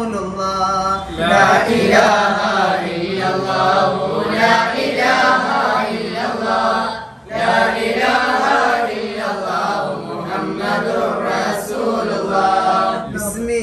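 Men's voices chanting together in a devotional Islamic chant, with a short break for breath about seven seconds in.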